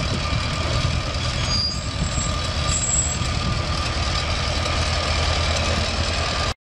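Farmall BN tractor's four-cylinder gasoline engine running steadily at low speed as the tractor is driven slowly. The sound stops abruptly near the end.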